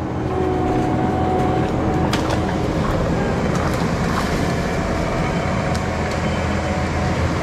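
Skid steer's diesel engine running steadily at working revs while the tree shear attachment works, with a few sharp cracks, the clearest about two seconds in.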